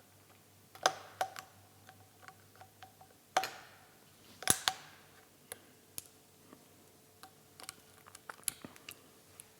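Scattered light clicks and taps of inner circlip pliers working out the circlip that holds the air spring in a DT Swiss fork stanchion, the loudest about one, three and a half, and four and a half seconds in.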